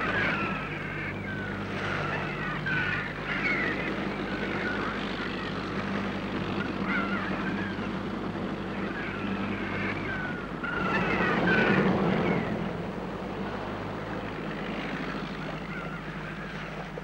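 A boat's engine running with a steady low hum under a wash of noise, with many short high chirps over it; the noise swells louder for about a second and a half near the two-thirds mark.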